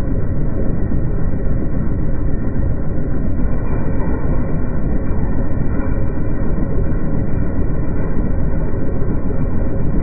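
Allis-Chalmers 7030 tractor's six-cylinder diesel engine running steadily under load as it drives a John Deere 566 round baler: a constant, deep rumble.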